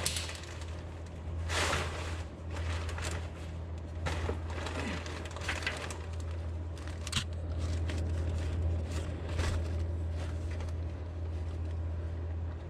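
Scattered rustles and light knocks of handling and moving things in a car's engine bay, over a steady low hum.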